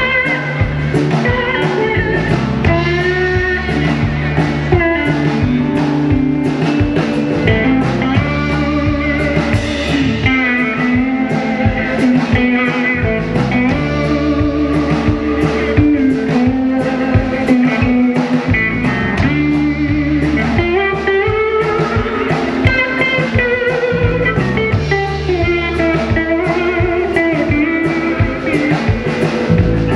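Live blues band: an electric guitar solo of bent notes with vibrato, over bass guitar and drum kit.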